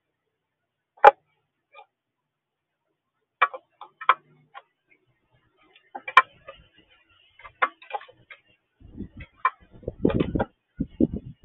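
Mourning dove pecking seed on a feeder tray: sharp, irregular beak taps with short silences between. A few low, muffled thumps come near the end.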